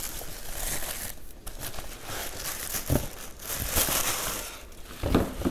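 Tissue paper crinkling and rustling in uneven bursts as it is pulled out of a cardboard shoe box, with a short louder rustle near the end.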